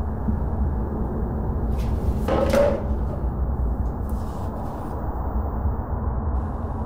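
A steady, low rumbling drone, with a short, louder noise about two and a half seconds in and a fainter rustle around four seconds in.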